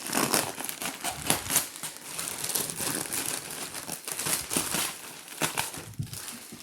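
Shipping bag crinkling and rustling continuously as the packed contents are pulled out of it by hand.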